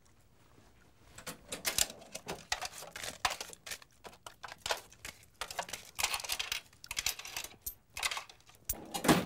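Cash register keys being tapped and money handled: a run of quick, irregular clicks and rustles, with a louder clatter near the end.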